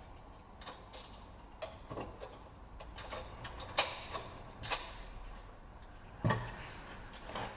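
Irregular light metal clicks and knocks from a bench vise setup pressing a leaf spring bush into its eye, with a cup over one end. Two louder knocks come about four and six seconds in.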